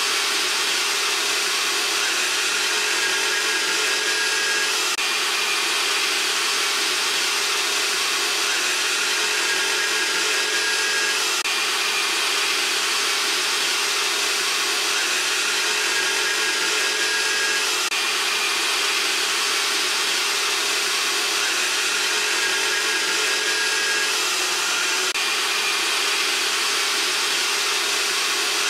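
Upright vacuum cleaner running steadily with a constant whine, its hose nozzle being drawn over a cat's fur.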